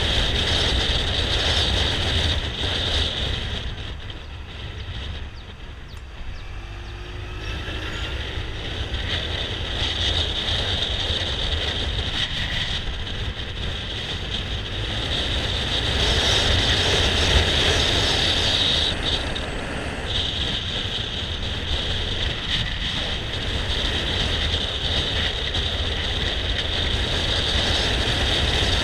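Riding noise from a scooter on the move, picked up by a GoPro: a steady low rumble of wind and road noise with the running motor underneath. It drops off for a few seconds about four seconds in, with a faint rising whine as it picks up again.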